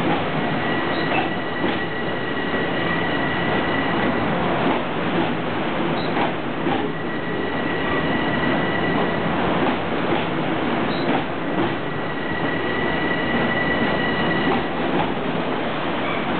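Long Island Rail Road M7 electric train cars rolling past close by. The wheels click over a rail joint in pairs about every five seconds. A steady high squeal comes and goes three times.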